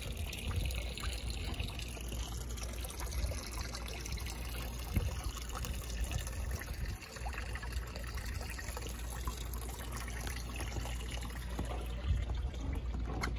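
Water trickling and lapping at a moored boat's hull, over a low steady rumble.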